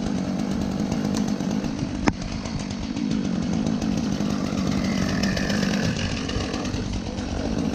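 Gasoline chainsaw running steadily, with one sharp click about two seconds in.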